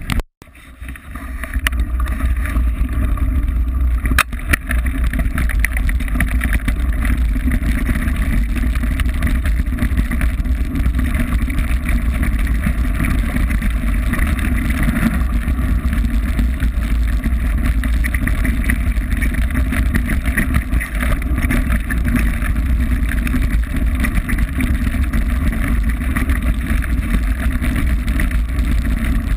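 Steady rumble and wind buffeting on a mountain bike camera's microphone as the bike rolls over a gravel track. The sound cuts out for a moment just after the start and comes back within about a second, with a sharp click about four seconds in.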